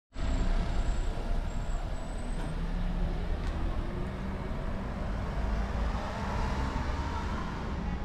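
Steady outdoor street noise: a low, continuous rumble of road traffic with faint clicks now and then.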